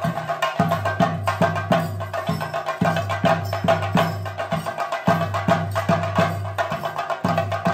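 Theyyam ritual percussion: drums beaten in a steady, driving rhythm of about three strikes a second, with a continuous higher tone held above them.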